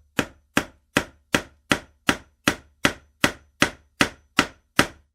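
Hammer striking repeatedly in a steady rhythm, about two and a half sharp blows a second, each dying away quickly.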